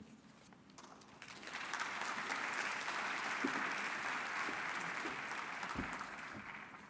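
Audience applauding, swelling about a second and a half in and dying away near the end.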